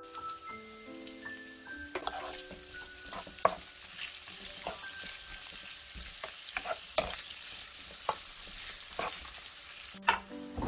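Sugar-coated pork belly and garlic sizzling in a frying pan, with frequent sharp pops and knocks over a steady hiss. A light tinkling music melody plays over the first two seconds and comes back near the end.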